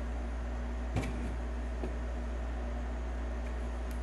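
Steady low background hum, with one sharp click about a second in and a faint tick near the end as the plastic battery pack housing is handled.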